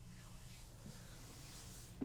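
Faint swishing of hands sliding and rubbing over skin during a massage, over a low steady hum.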